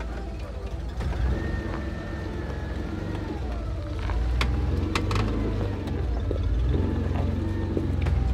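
Toyota 4Runner's engine pulling at low revs as the truck crawls up a rock ledge, getting louder about four seconds in. A few sharp cracks or knocks stand out around four to five seconds in.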